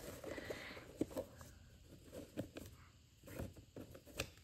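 Faint handling sounds of a new sneaker boot: a brief soft rustle, then scattered light taps and clicks as hands pull the packing stuffing out of it and work its laces.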